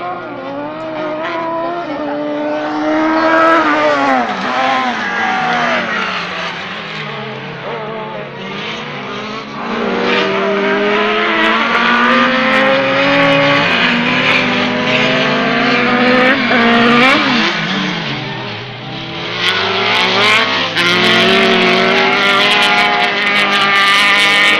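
Several autocross buggies racing on a dirt track. Their engines rev up and down through the gears, several at once and overlapping.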